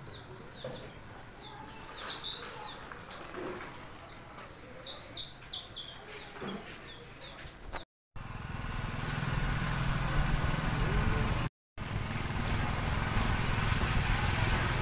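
Small birds chirping, many short, high chirps in quick runs. About eight seconds in it cuts to a motorcycle on the move, its engine running low and steady under wind noise.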